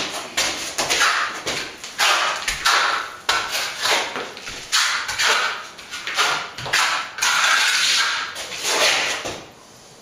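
A plastering trowel spreading white set-coat plaster over a wall: repeated scraping, swishing strokes about once a second, with one longer sweep a little after the seven-second mark. The strokes stop shortly before the end.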